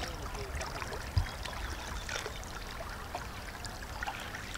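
Water lapping and trickling against a coracle as it is paddled across a river, with small splashes and a single dull knock about a second in.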